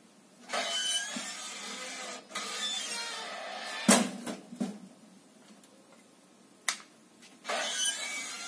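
Bursts of rustling noise from things being handled, with one sharp knock about four seconds in and a short click near the end.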